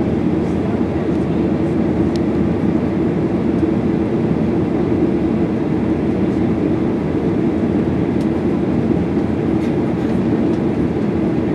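Steady cabin noise inside a Boeing 737-800: its CFM56-7B jet engines and the rushing air make an even drone, with a few faint ticks.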